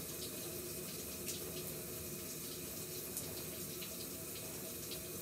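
Hand-held shower left running, a steady stream of water with a few faint ticks of drips.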